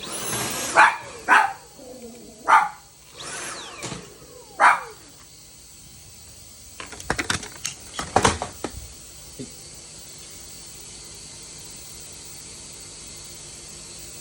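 Toy poodle barking sharply about four times in the first five seconds, apparently at the vacuum cleaner. This is followed by a quick cluster of clicks and taps a couple of seconds later.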